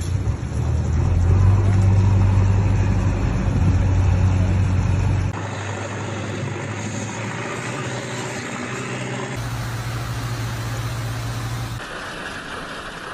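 Several short phone recordings of a hailstorm spliced together, each cutting abruptly into the next. A steady noisy wash of storm noise runs through them, with a low vehicle-engine hum in the first five seconds.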